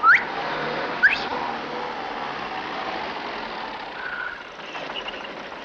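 Two sharp rising whistles about a second apart, then an old taxicab's engine running as the car drives up.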